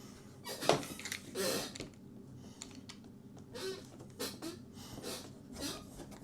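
Handling noises from a window screen being worked on: a sharp click, short rustles and scattered light clicks as the mesh, vinyl spline and metal frame are moved and set in place.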